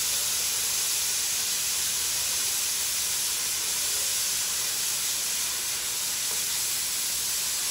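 Oxy-fuel cutting torch with its cutting-oxygen trigger held down, giving a steady loud hiss as the oxygen jet cuts through the preheated metal.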